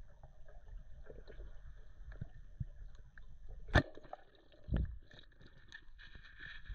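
A speargun fired underwater about four seconds in: one sharp, loud snap, followed about a second later by a duller thump. Around it, low underwater rumble and faint crackling.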